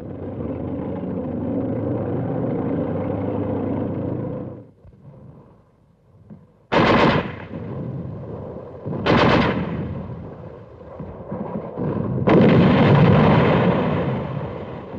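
Tank engine running in a steady rumble for about four and a half seconds. Then gunfire: two sharp blasts about two and a half seconds apart, and a longer, louder burst of firing near the end.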